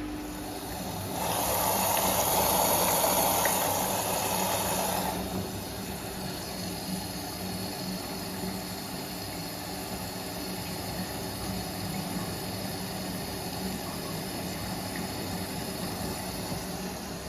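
Compact washing machine running a cottons 40 wash: a loud rushing hiss for about four seconds, then a steady hum with a low drone.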